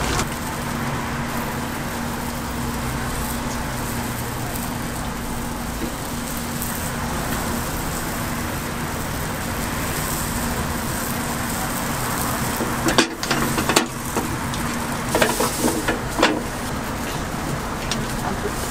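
Bungeoppang (fish-shaped bread) batter sizzling steadily in hot iron molds, with a few sharp knocks and clacks about two-thirds of the way through.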